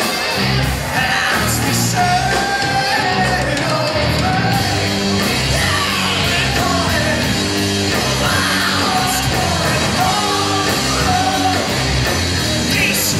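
Live rock band playing: a singer sings a melody over electric guitars, bass and drums, loud and steady.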